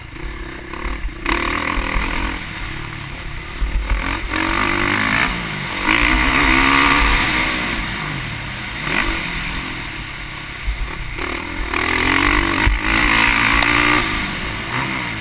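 Motocross bike engine recorded from an onboard camera, revving up and easing off again and again as it is ridden hard over the dirt track, with a constant low rumble and some rattling over the bumps.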